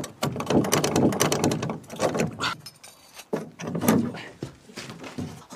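A metal slide bolt on a wooden door rattling and clicking as it is prised back with a pistol, then a few knocks as the door is pushed open.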